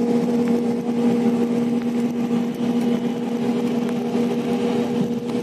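Steady drone inside a moving air-conditioned coach bus: engine and road noise with a constant low hum.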